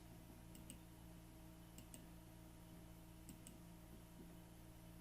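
Near silence: a steady low hum with faint, sharp clicks coming in close pairs about every second and a half.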